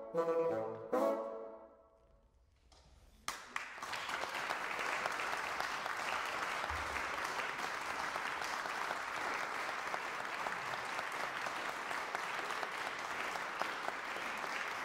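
Three bassoons play two short final chords that fade out in the hall, then after a brief hush the audience bursts into steady applause about three seconds in.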